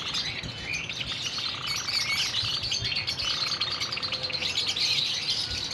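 Java sparrows chirping and twittering: a dense stream of short, high chirps, with a lower buzzy trill coming back several times.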